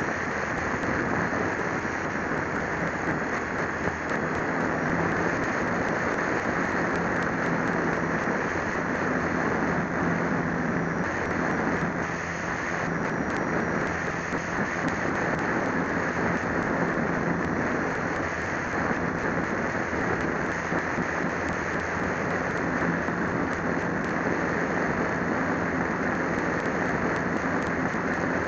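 Steady rush of airflow mixed with the even hum of an RC plane's electric motor and propeller in flight, picked up by a small camera mounted on the plane. The hum eases briefly about twelve seconds in.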